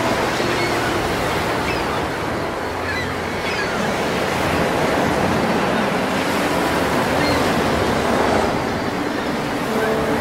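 Steady rushing of wind and choppy waves, with a few faint short high chirps.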